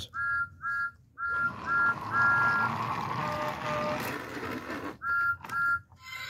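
Battery-powered motorized talking Thomas toy engine setting off: its electronic whistle toots again and again in short two-note blasts, one held longer, then a lower pair and two more toots near the end, over the whirr of its motor running along plastic track.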